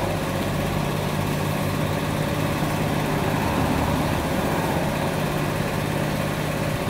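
Road traffic: motorcycles and a car drive past over a steady low engine hum.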